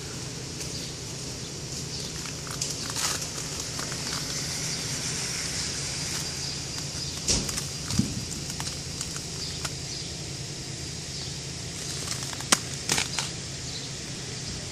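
Steady outdoor hiss with a low hum under it, broken by a few sharp clicks and cracks: two about halfway through and a quick cluster near the end.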